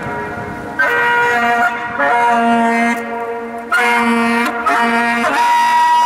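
Saxophone playing a series of long held notes, moving to a new note every second or two.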